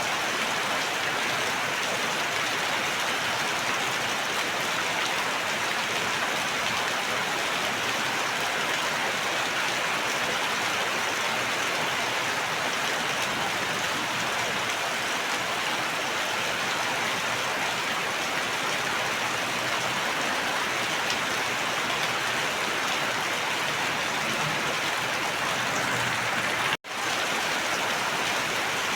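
Steady rain falling, a dense even hiss of drops on surfaces. Near the end it cuts out for an instant and comes straight back.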